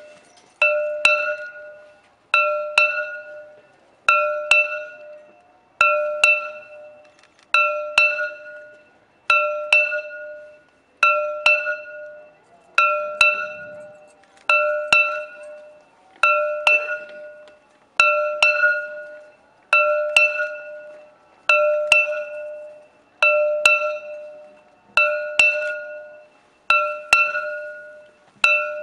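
A bell struck at a slow, steady pace, about once every 1.7 seconds. Each stroke rings out and fades before the next.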